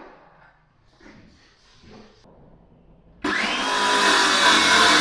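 Cordless circular saw starting up about three seconds in, spinning up and cutting into 22 mm chipboard flooring, its blade set to 21.5 mm so it stops just short of the joists and cables below. Before it, only faint handling sounds.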